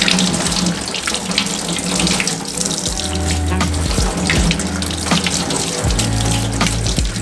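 Kitchen tap running steadily onto hands and pieces of deer meat being rinsed in a stainless steel sink, the water splashing as the meat is turned under the stream.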